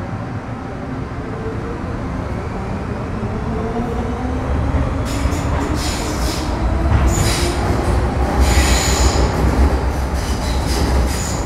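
Onboard a Metro Cammell M-Train EMU with GEC GTO chopper traction, the chopper and traction motors whine in several tones that rise in pitch as the train picks up speed over a growing low rumble. From about five seconds in, repeated high screeching bursts come from the wheels on the rails.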